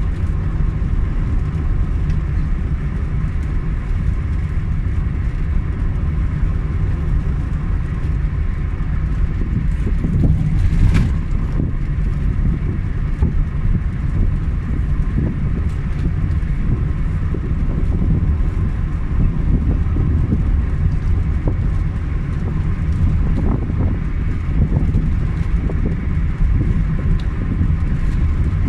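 A car driving on an open road: steady engine and tyre rumble, with a single brief knock partway through.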